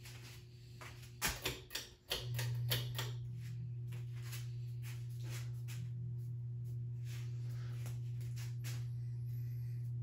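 A 52-inch ceiling fan's motor hums steadily. A quick cluster of sharp clicks comes about a second in, and after it the hum becomes noticeably louder.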